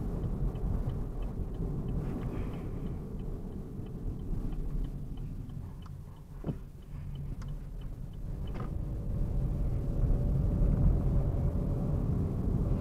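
Inside the cabin of a Chevrolet Onix Turbo on the move: a steady low engine and road rumble, with the turn-signal indicator ticking at about two to three ticks a second for most of the first two-thirds. The rumble grows as the car picks up speed near the end.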